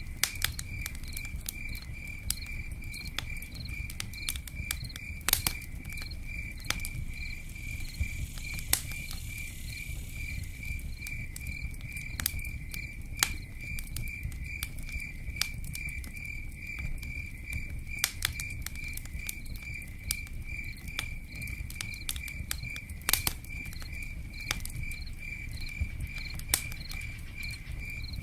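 A cricket chirps in a steady pulse, a few chirps a second, over the sharp crackles and pops of a campfire and rain pattering on a tent roof, with a low steady rumble underneath.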